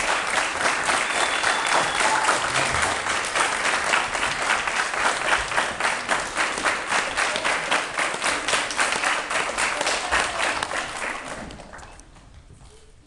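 Crowd applause, many people clapping together, fading away near the end.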